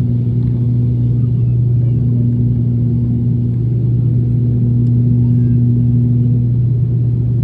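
Steady low drone of an ATR turboprop airliner's propellers and engines, heard inside the passenger cabin during descent.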